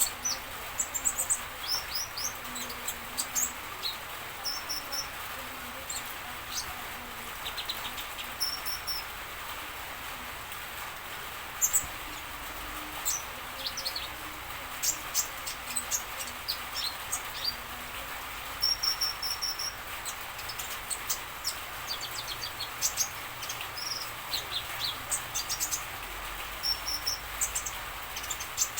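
A small songbird, the konin, calling: quick, high, scattered chirps and short twittering phrases, over a steady background hiss.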